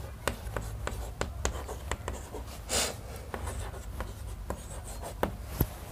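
Chalk writing on a chalkboard: a string of short taps and scratches as letters are written, with one longer scratch about three seconds in.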